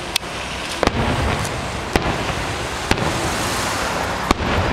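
Aerial fireworks shells bursting: five sharp bangs, roughly one a second, over a steady background noise.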